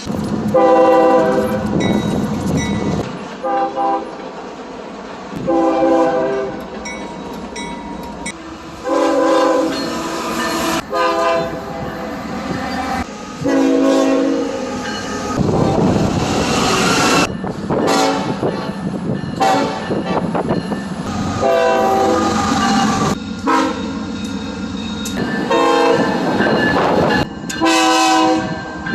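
Train horns sounding about ten blasts of mixed length, some long and some short, over the rumble and clatter of a train running on the rails.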